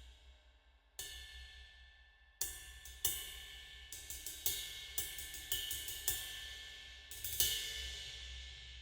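Handmade B20 bronze cymbal struck about a dozen times in quick clusters, each hit ringing bright and decaying. The loudest strike comes about three quarters of the way through and its ring fades away at the end.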